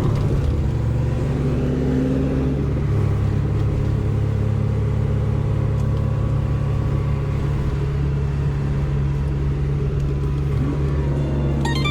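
Scania lorry's diesel engine running steadily on the road, a low even drone. Plucked-string music begins near the end.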